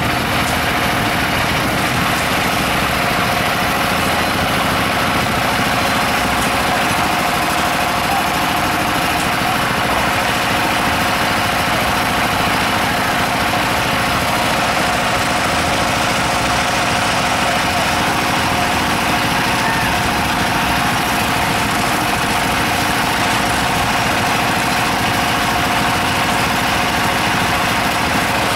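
An engine running steadily at a constant speed, with a steady tone held throughout.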